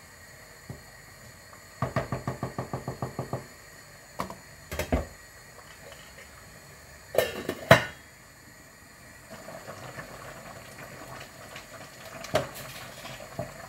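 Wooden spoon knocking against a stainless steel cooking pot while stirring vegetables and minced meat. First comes a quick run of about ten light knocks, then a few single, louder knocks, the loudest two close together about halfway through. A faint steady simmering follows as the pot cooks on the gas flame.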